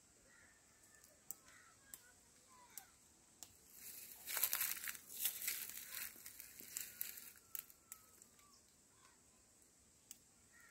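Crackling and rustling of coffee cherries being plucked by hand off a branch, with scattered single clicks and a dense run of crackles through the middle few seconds.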